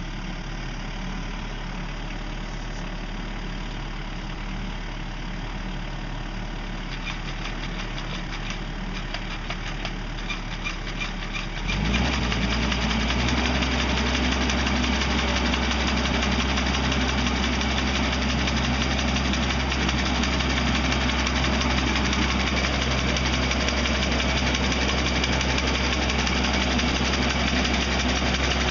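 Tractor engine running steadily while powering a hydraulic sickle-bar brush trimmer on its rear arm. It gets louder and fuller about twelve seconds in.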